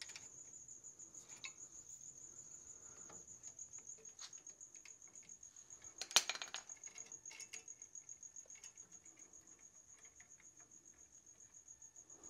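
A cricket chirping steadily, a high pulsing trill of about four to five chirps a second. Over it come light metallic clinks of drum-brake hardware being handled, the sharpest about six seconds in.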